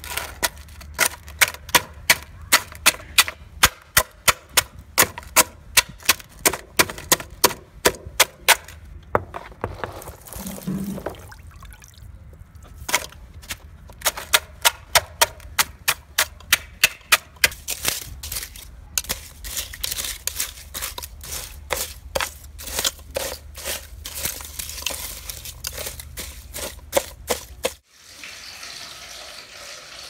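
A hand-held stone pounding whole sea urchins in an aluminium pot, crushing their spiny shells: rapid sharp knocks about two a second. There is a short pause about a third of the way in, and the knocking stops abruptly near the end, leaving a quieter steady hiss.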